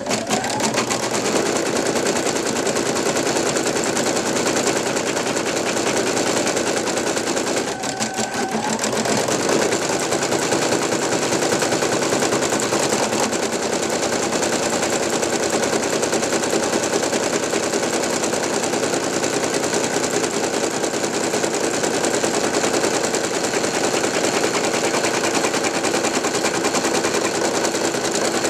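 Brother NV2600 computerized embroidery machine stitching a design at speed, a fast, even needle clatter. The rhythm changes briefly about eight seconds in.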